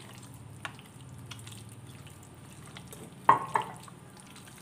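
Wet squelching of a hand kneading chicken pieces in thick egg-and-flour batter in an enamel pot, with two sharp wet slaps a little after three seconds in.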